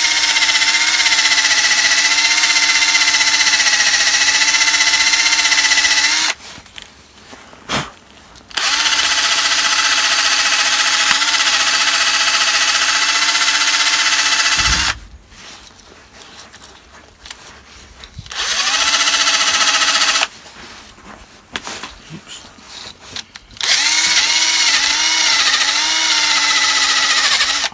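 Cordless drill spinning a wire wheel brush against a rusty brake caliper carrier, scrubbing off rust and dirt. It runs in four bursts with short pauses between, a steady whine whose pitch wavers in the last burst.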